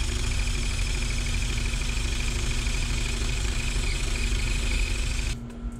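Power tool spinning a rubber eraser wheel against vinyl stickers on boat gelcoat to strip them off, running steadily and then cutting off near the end.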